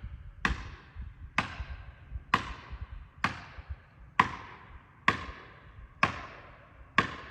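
A hammer striking a felling wedge, eight hard blows about one a second, each with a short ringing tail. The wedge is being driven into the cut to push over a tree that won't fall.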